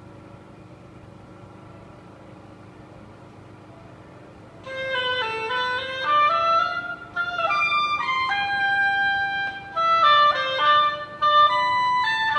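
Solo oboe, unaccompanied, begins a melodic phrase about four and a half seconds in, after a faint steady room hum. It moves between held notes and quicker steps, with short breaks for breath.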